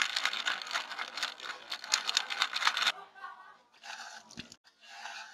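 Soda siphon spraying carbonated water into a glass of ice and juice: a fizzing, crackling spray that cuts off sharply about three seconds in. Two shorter spurts follow near the end, splashing into a second glass of ice.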